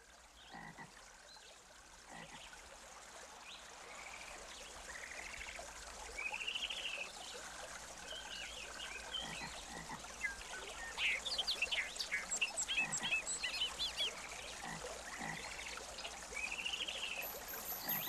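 Nature ambience fading in: many short chirping and trilling animal calls over a soft, even hiss like trickling water, growing steadily louder.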